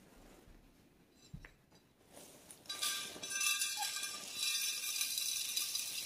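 Small plastic beads being shaken out of a robot vacuum's disposable dirt bag into a glass dish, clinking and rattling continuously from about two and a half seconds in.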